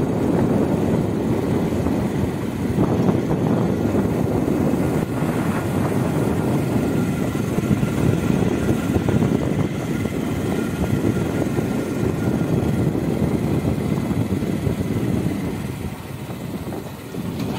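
Motorcycle running along a road at riding speed: a steady engine drone mixed with rushing air noise, easing off briefly near the end.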